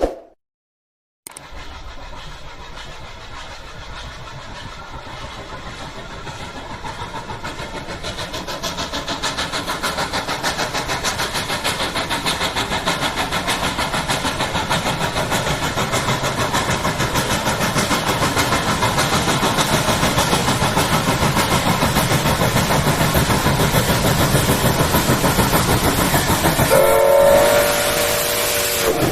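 Steam locomotive working hard up a steep grade, its exhaust beating in quick, even chuffs that grow steadily louder as it approaches. Near the end its steam whistle blows for about two seconds.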